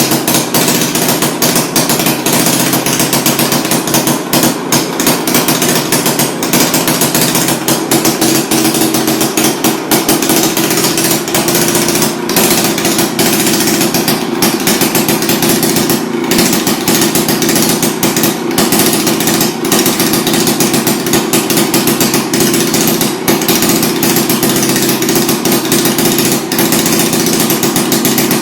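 Victa 18 lawn mower's two-stroke engine running, a fast continuous rattle that speeds up slightly about ten seconds in and then holds steady.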